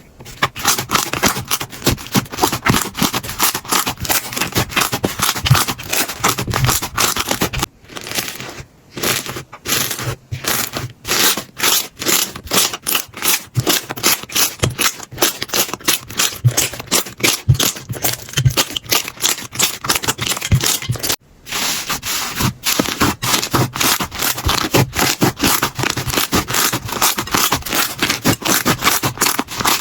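Slime being squeezed and pressed by hand, giving a dense run of rapid clicking and crackling pops, with short breaks about eight and twenty-one seconds in.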